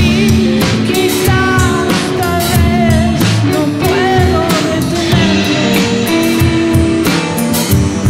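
A rock band playing live: two electric guitars over a drum kit, with a melody line that bends and wavers in pitch.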